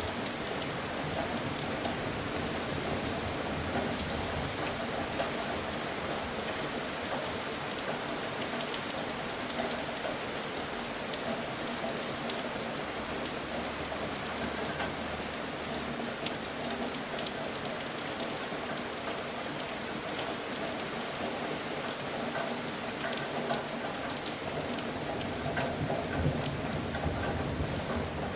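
Steady rain falling, a dense even hiss with scattered single drops tapping close by.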